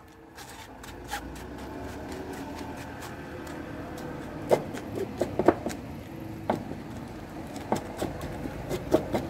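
A metal spoon scraping and tapping in a strainer as blended tomato is pressed through to squeeze out the juice, with sharp clicks several times in the second half. A steady low hum runs underneath.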